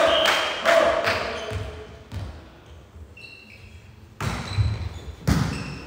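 Rhythmic clapping that dies away in the first second. After a few quieter seconds, a volleyball is struck twice, about a second apart, each hit ringing in a large hall.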